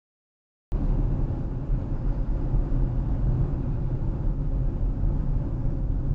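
Steady low rumble of a car driving, road and engine noise, cutting in abruptly after a moment of silence.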